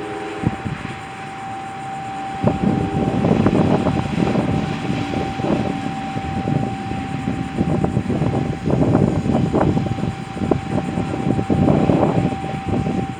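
Irregular gusts of rumbling noise, typical of wind buffeting the microphone, stronger from about two and a half seconds in, with a faint steady high tone held underneath.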